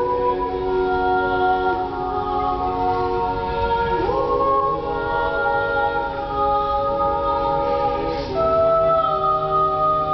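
Five women's voices singing a Baroque piece a cappella in close harmony, holding long chords that move to a new chord about every four seconds.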